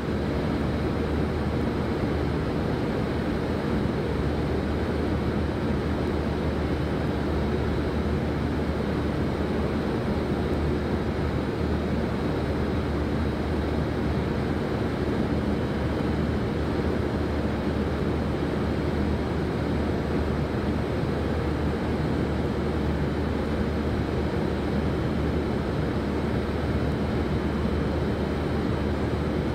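Steady industrial drone of a car-body dip-coating line in a paint shop: even machinery and ventilation noise over a low hum, unchanging throughout.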